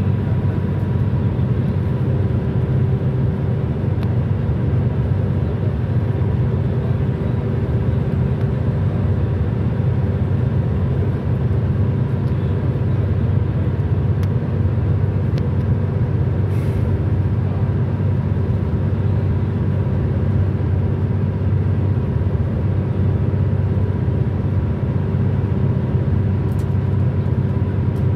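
Steady road noise of a car cruising at highway speed, heard from inside the car: a low, even rumble of tyres and engine.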